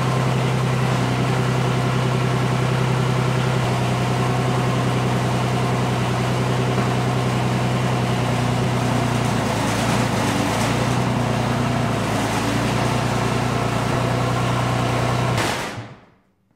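John Deere 332 garden tractor's 16 hp Yanmar three-cylinder diesel idling steadily, then shut off near the end and running down within about a second.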